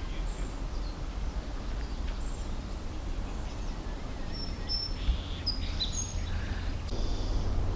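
Small birds chirping, short high chirps and brief whistles scattered through, over a steady low rumble.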